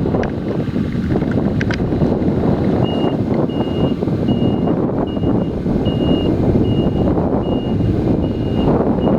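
Heavy farm machinery running steadily, with a reversing alarm that starts beeping about three seconds in: a single high tone repeating a little more than once a second.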